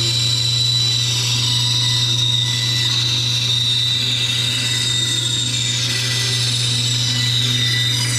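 Grizzly G0555X 14-inch band saw running, its blade cutting through a softwood board fed by hand: a steady low motor hum with a steady high whine above it.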